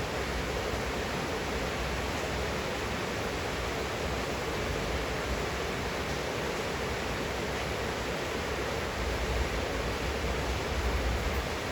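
Steady rain falling at night, heard from a window as an even hiss. A low rumble swells briefly near the end.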